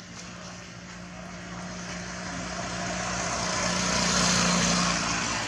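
A passing engine, growing steadily louder to a peak about four seconds in, then starting to fade.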